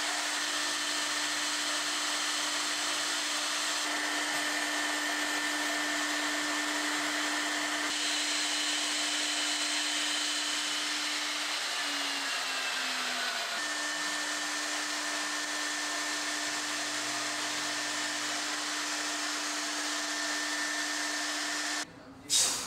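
Router spindle of a gantry woodworking machine running steadily with a high whine while milling wood, its pitch dipping briefly a little past halfway before settling again. Near the end the noise cuts off suddenly, followed by a single short loud clack.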